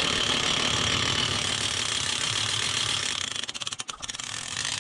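Hand-cranked trailer winch ratcheting as its handle is wound to reel in the rope, the pawl clicking rapidly. About three seconds in the clicking slows and breaks into separate ticks.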